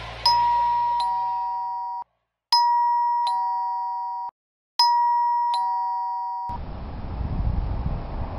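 Two-tone ding-dong doorbell chime sounding three times, each a high note followed by a lower note that ring on and then cut off abruptly. After the third chime a steady low rumble with hiss takes over.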